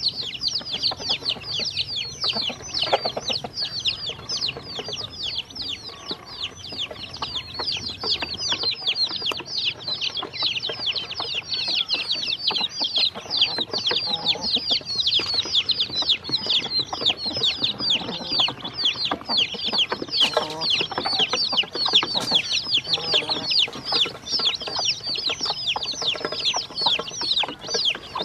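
A brood of baby chicks and ducklings peeping nonstop, a dense chorus of short, high, falling peeps, many overlapping each second, while they feed together.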